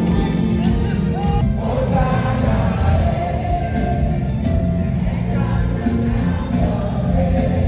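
Gospel worship music with many voices singing together over a band, held notes and a steady low bass throughout.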